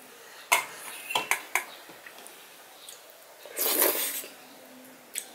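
Eating by hand from a stainless steel plate: a few sharp clinks and knocks in the first second and a half, then fingers pressing and scraping rice and dal across the metal plate for about half a second in the middle, and one more click near the end.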